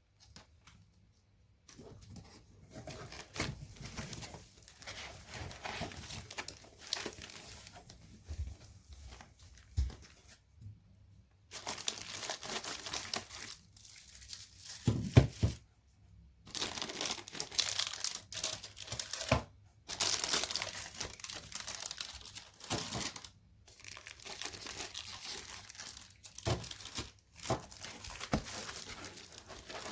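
Packaging crinkling and tearing in irregular bursts with short pauses, with a louder thump about halfway through.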